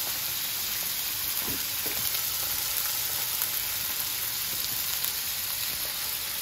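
Hot oil sizzling steadily as a chicken mince patty shallow-fries in a non-stick pan and fresh-cut chips deep-fry in a pan of bubbling oil beside it.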